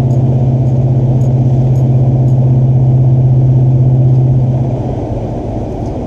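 Interior exhaust drone of a 2013 Ford F-150's 5.0 L V8 through a Flowmaster 40 Series exhaust at highway cruise, heard inside the cab: a loud, steady, low pulsating note. The drone weakens a little near the end.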